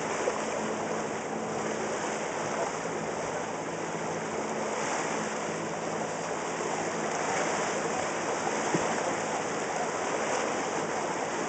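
Water rushing and splashing steadily along the hull of a moving boat, with a faint low hum from its motor underneath.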